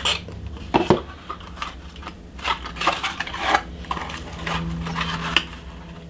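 Small cardboard processor retail box being opened and its plastic packaging handled: a series of sharp clicks, taps and light rattling, spaced irregularly, over a faint steady hum.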